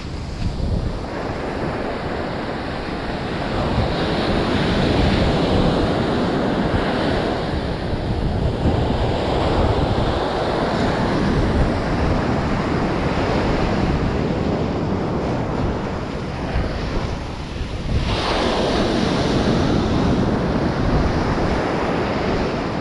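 Ocean surf breaking and washing up a sandy beach, swelling and easing in long surges, with a fresh wave breaking sharply about three-quarters of the way through. Wind buffets the microphone.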